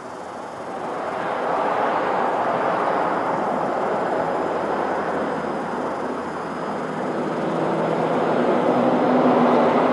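Road traffic going by: the noise swells about a second in, eases a little, then swells again near the end, joined by the steady hum of a heavier engine as a truck passes.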